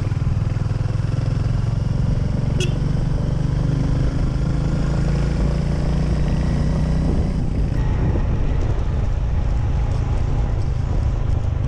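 Royal Enfield single-cylinder motorcycle engine running steadily at road speed under the rider, with its low exhaust thump loud and constant. A brief high-pitched chirp cuts through about two and a half seconds in.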